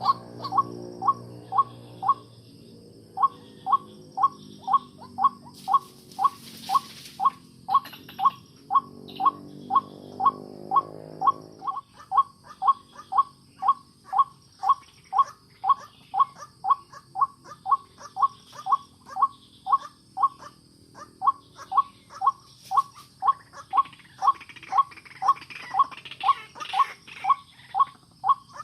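White-breasted waterhen calling: a short, sharp note repeated over and over at about two and a half a second, with a brief break about two seconds in.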